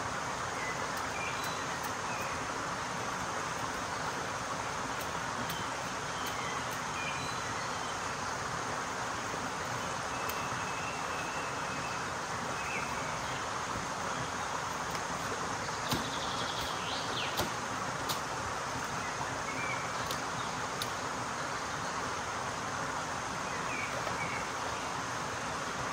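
Steady rushing of a rocky mountain stream, with faint, scattered bird chirps and a few sharp clicks a little past the middle.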